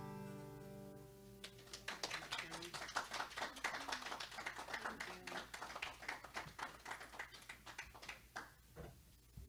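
The last strummed chord of an acoustic guitar rings and fades, then a small audience claps, the applause starting about two seconds in and dying away near the end.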